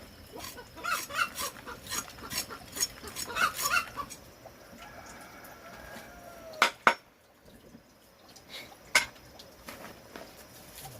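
Chickens clucking and squawking in quick short calls for the first few seconds, then quieter. Later come three sharp knocks: two close together, then one about two seconds after.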